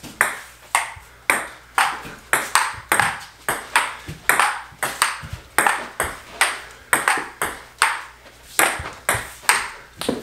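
Table tennis ball clicking back and forth in a long, fast rally, alternating paddle hits and table bounces at about three hits a second.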